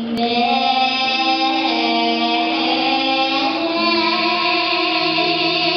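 A child sindhen, a Javanese gamelan female vocalist, singing into a microphone, holding long notes that step from one pitch to the next.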